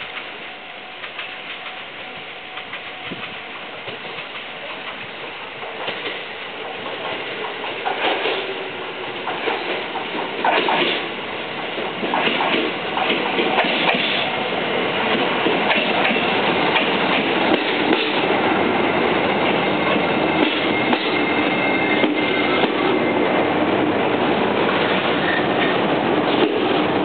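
JR limited express Tsugaru electric train pulling into a station platform, growing steadily louder as it comes near. Wheels click over the rail joints, and a steady high tone runs under the noise as the carriages roll past.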